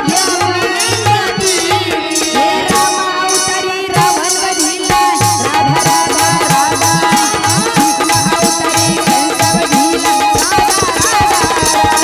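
Live stage music: a girl's voice singing through a PA, over tabla drum strokes and a steady jingling beat.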